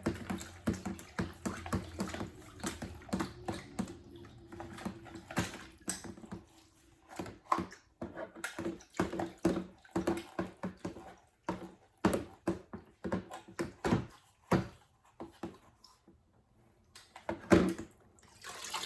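O-Cedar Easy Wring spin mop being worked over a hard floor: irregular wet swishes and scrapes of the microfiber head, with knocks of its plastic parts and a short pause near the end.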